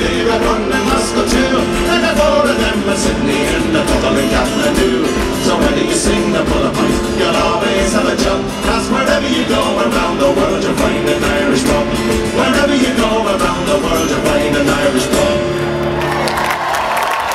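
Live Irish folk band playing the close of a song on acoustic guitars and other instruments, ending on a held final chord near the end, as applause begins.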